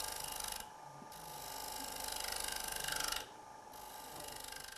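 Square high-speed steel cutter of a Robert Sorby TurnMaster shear-cutting the outside of a spinning wooden bowl on a lathe: a light hissing cut over the lathe's steady tone, breaking off briefly about half a second in and again a little after three seconds. This is the finishing cut, taken with the head rotated to the shear-cut position for a near-perfect surface.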